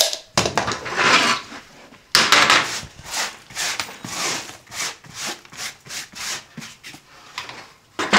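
Scraping and rubbing on a plywood floor as a long level is slid across it and a line is marked along it, a scrape every half second or so.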